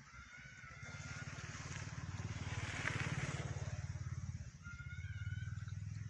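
A motorbike engine running as it passes, swelling to its loudest about three seconds in, dipping briefly, then coming up again before fading.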